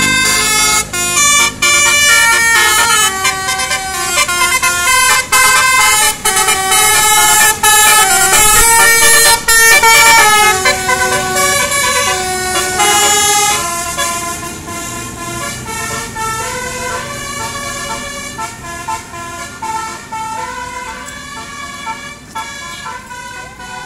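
Bus telolet horn: a coach's multi-trumpet air horn set playing a quick melody of stepping notes, several sounding together. It is loud at first and grows fainter through the second half.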